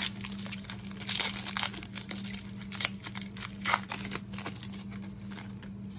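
Foil wrapper of a Prestige football card pack crinkling and tearing as it is ripped open by hand and the stack of cards slid out, in irregular crackles that are loudest in the first few seconds and thin out toward the end.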